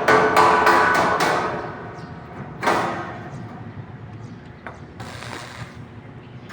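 Hammer blows on metal, each ringing briefly: a quick run of about five strikes in the first second and a half, then one more strike near the three-second mark.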